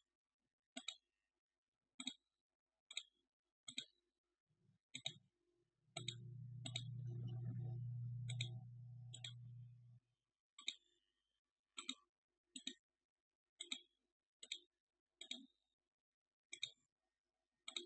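Computer mouse clicking, single and double clicks roughly once a second. A low hum comes in for about four seconds in the middle.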